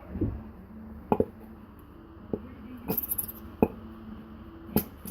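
A few light knocks and clinks from a glitter glue bottle being handled and poured into a bowl, over a faint steady hum.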